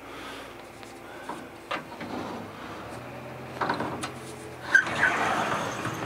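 Closet drawers and a sliding closet door being handled: a few light knocks, then a longer sliding rub near the end, over faint room noise.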